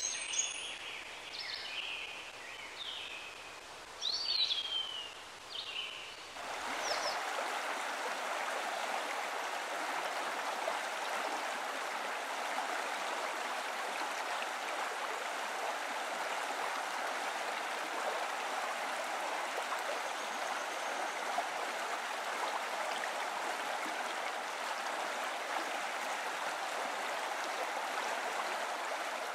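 Short bird chirps over a quiet background for the first six seconds. Then a steady rush of running water, like a stream, sets in and carries on unchanged.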